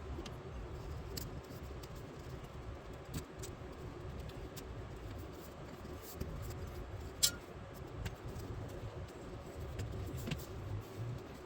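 Scattered small clicks and handling noises as the bottom edge of a windshield is worked into its rubber seal, with one sharper click about seven seconds in. A low steady hum runs underneath.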